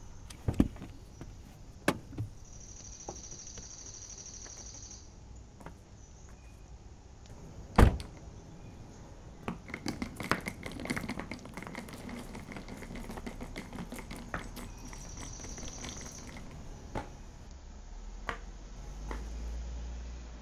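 Mini Cooper convertible's door shut with a single loud thunk about eight seconds in, amid quieter clicks and knocks of the occupants getting out, followed by a run of light footsteps.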